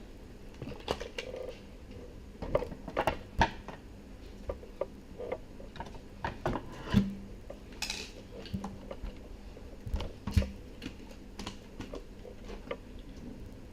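Irregular clicks, taps and light metallic clinks of small parts and tools being handled while a Pioneer CDJ-900nexus is worked on, with a faint steady hum underneath.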